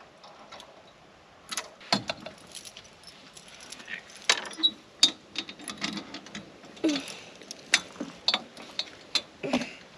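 Metal chain clinking and rattling in a string of irregular sharp clicks as it is hooked onto a camper trailer's swing-down spare wheel carrier.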